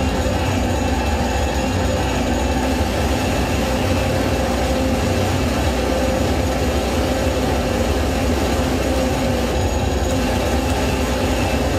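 Live electronic noise drone from a table of cabled effects devices: a dense, unchanging wash with a low rumble and a faint held tone, and no beat.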